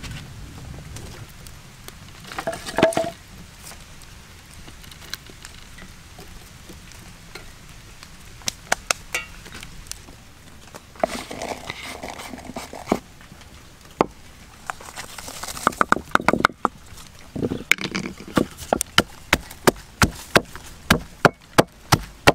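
Scattered knocks and clatter, then in the last few seconds a wooden pestle pounding chilies and garlic in a clay mortar: sharp thuds at about two to three a second.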